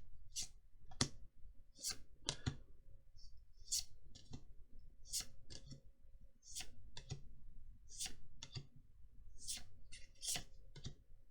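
Magic: The Gathering trading cards being flicked through one at a time and dropped onto a pile: short, sharp card flicks about once or twice a second, some in quick pairs.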